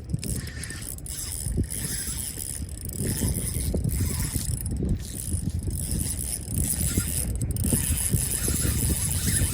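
Fishing reel's drag clicking continuously as a hooked fish runs and pulls line off the spool.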